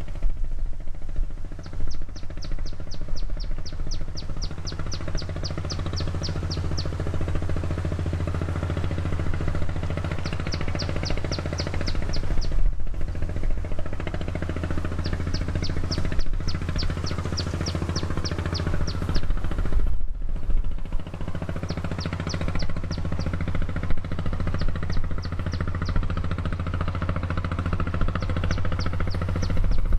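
A sand boat's engine running steadily, a low drone. Several short runs of rapid high ticks, about ten a second, come and go on top of it.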